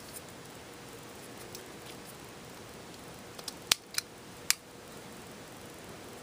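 A little past halfway, a quick cluster of sharp clicks: three loud ones within about a second, with a couple of fainter ones just before. They come from handling small hard plastic items of an iPod Shuffle unboxing. A faint steady room hiss lies beneath.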